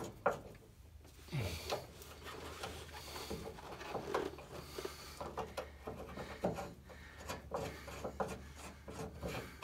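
Nuts being turned by hand onto the bolts of a Ford Model A's rear spring fitting: small metallic clicks and light rubbing, irregular and more frequent in the second half.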